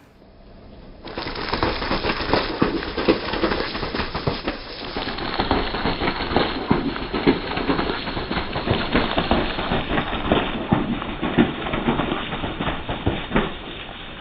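Crunchy objects being crushed under a car tire: dense, irregular crackling and crunching that starts about a second in and eases off near the end.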